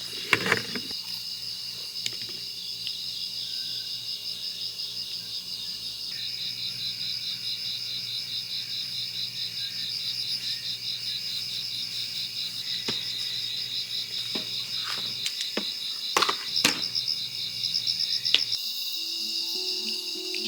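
Insects trilling steadily in a fast, pulsing chorus, with a few sharp clicks and knocks scattered through; soft music comes in near the end.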